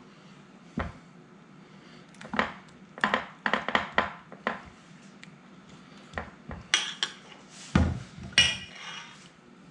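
A spoon knocking and scraping against a dish as spoonfuls of a cheese mixture go into the bottom: a scattered string of short clinks and knocks, the loudest about eight seconds in.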